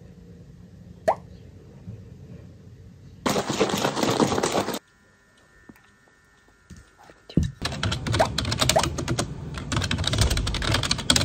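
Rapid typing on a computer keyboard, a dense run of key clicks, fills the last few seconds. Earlier there is a single sharp click about a second in and a short burst of noise around three to four seconds in.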